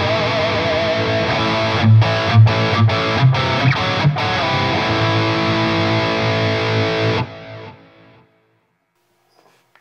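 Distorted electric guitar through an Axe-Fx II modelling a Mesa/Boogie Mark V lead tone, with delay and reverb: a held note with vibrato, a run of short, stopped chords about two seconds in, then a sustained chord that is cut off about seven seconds in and dies away in a short tail.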